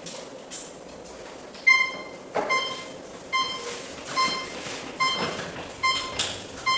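Short electronic beeps from RC radio gear, repeating about every 0.8 s from a couple of seconds in, along with a few knocks from handling.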